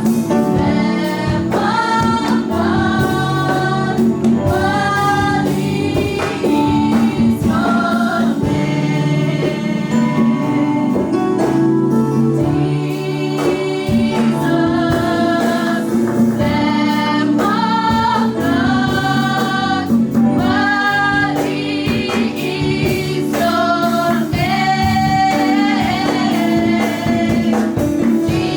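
Live gospel worship music: a choir singing over a band with a steady beat.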